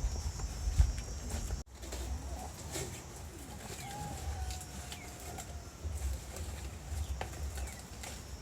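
Bird calls in the open air, including one longer held call about halfway through, over a low rumble of wind on the microphone.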